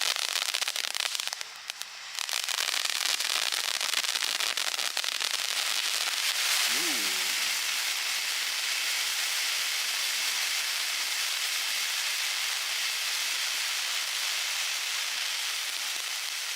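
Consumer firework cake going off in a dense, continuous crackle, easing briefly about a second and a half in before crackling on.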